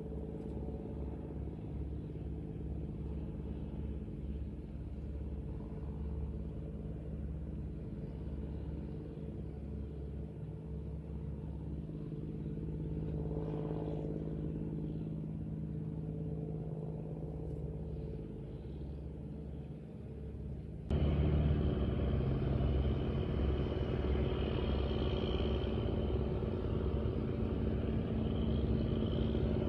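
An engine running steadily with a low hum. About two-thirds of the way through it suddenly gets louder, with a hissier, higher-pitched layer added.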